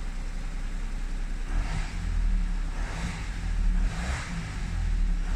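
Audi S7 engine idling steadily, heard from inside the cabin: its plain idle sound.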